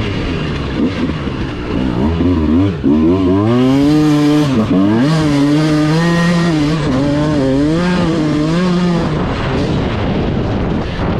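Motorcycle engine revving, its pitch rising and falling repeatedly with the throttle.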